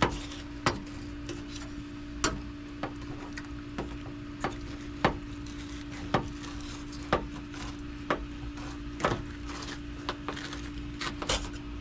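Fillet knife working a flounder fillet away from the skin: a string of short, sharp taps and scrapes at an uneven pace, roughly one or two a second, over a steady hum.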